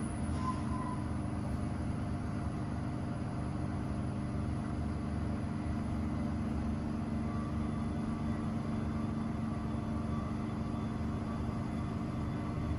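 ThyssenKrupp glass elevator car travelling down its shaft, giving a steady low hum and rumble.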